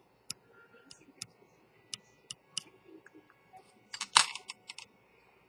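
Small, sharp, irregular clicks as fingertips work the crown of a Tudor Prince Oysterdate dive watch, with a quick run of louder clicks about four seconds in.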